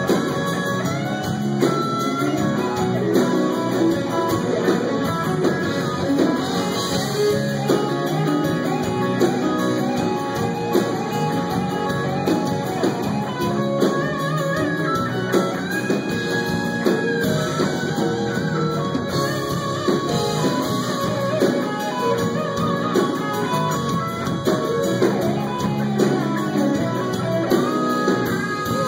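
Live rock band playing, with an electric guitar lead over the band; the guitar bends and holds notes.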